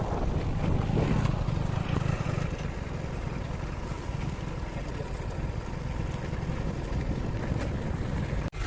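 Diesel engine of working machinery running with a steady low rumble.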